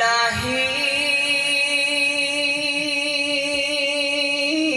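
A man's voice singing a naat, holding one long drawn-out note on the word "Ilahi" with a slight waver, lifting a little in pitch near the end.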